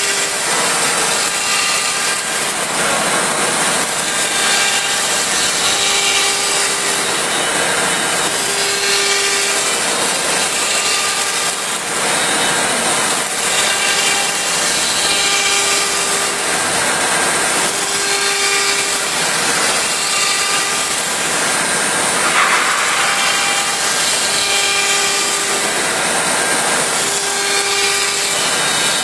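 An M1325 CNC wood router cutting wood, a steady loud noise of spindle and bit. Over it, a pitched whine comes and goes every second or two as the machine moves.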